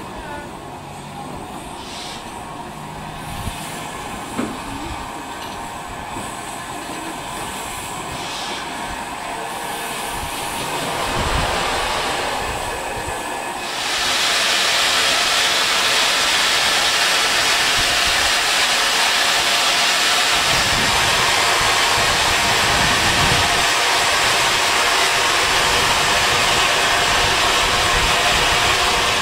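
Steam locomotive at the station, the Somerset & Dorset Joint Railway 7F 2-8-0 No. 53809: quieter railway noise with a couple of sharp knocks, then about halfway through a sudden loud, steady hiss of escaping steam starts and holds.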